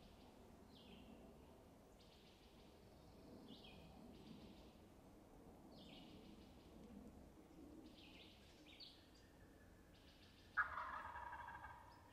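A wild turkey gobbler gobbles once, loudly, near the end. Before it, a songbird repeats a short high song every couple of seconds over near-quiet woods.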